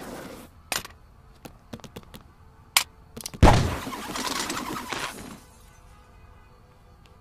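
Designed sound effects for an animated scuffle: a run of sharp clicks and hits, then a heavy impact about three and a half seconds in, followed by nearly two seconds of crashing, shattering noise.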